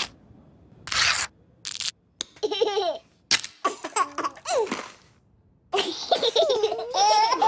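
Babies and toddlers laughing and squealing in several short, wavering bursts, with a couple of brief noisy swishes near the start.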